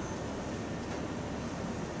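Faint steady low noise of room tone, with no strokes or clicks.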